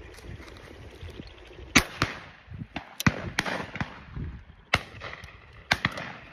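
Shotgun shots at a driven game shoot: about six sharp reports at irregular intervals, some nearer and some farther off, the loudest about two seconds in, each with a short echo.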